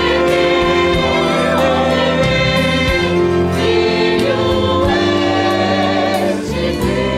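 Choir singing a Christian song over instrumental backing with a light beat.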